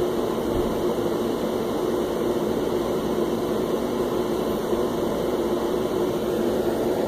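A steady mechanical hum with a faint held drone underneath, even in level throughout.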